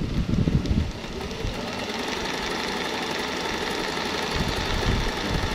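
Mechanical sewing machine running steadily at speed, stitching one side of a four-step buttonhole with the dial on step 3.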